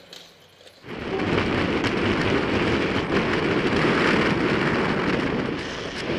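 Wind buffeting a bike-mounted camera's microphone while riding at speed: a loud, steady rushing that starts suddenly about a second in after a quieter moment.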